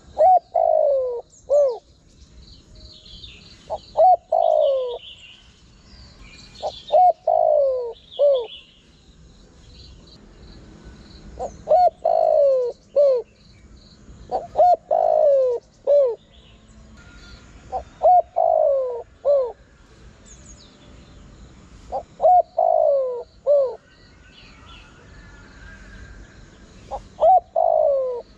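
Spotted dove cooing: a short phrase of a few falling notes, repeated about every three to four seconds, about eight times. Fainter high chirps of small birds run behind it.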